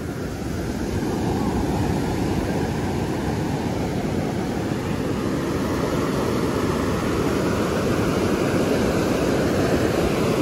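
Surf breaking and washing up the beach: a steady low rush of wave noise that grows a little louder about a second in.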